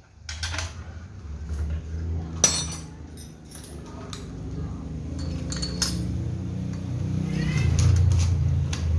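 Metal clinks and knocks of hand tools on chainsaw parts, with one sharp knock about two and a half seconds in, over a low steady hum.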